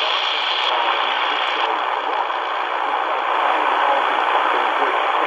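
Shortwave static hissing from the speaker of a C.Crane CC Skywave 2 portable radio as its bandwidth filter is stepped narrower. Less than two seconds in, the top of the hiss cuts off and the static turns duller.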